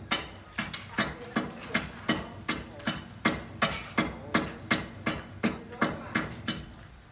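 A hammer striking repeatedly in a steady rhythm, about two or three blows a second, each with a brief ring; the blows stop near the end.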